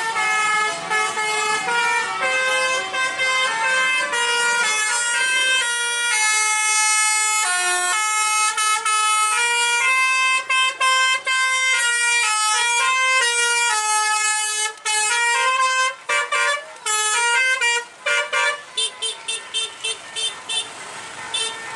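Basuri telolet horns on tour buses playing a tune in stepped, held notes without a break. In the last few seconds the notes turn into a string of short, quick toots.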